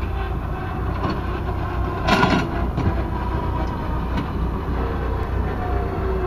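Aircraft tug driving across a concrete apron: a steady low rumble, with a louder clatter about two seconds in.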